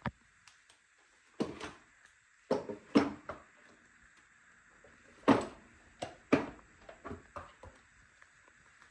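Clunks and rattles of a 1976 Hoover Junior upright vacuum being handled while switched off. They come in clusters of knocks about 1.5, 3 and 5 to 7.5 seconds in.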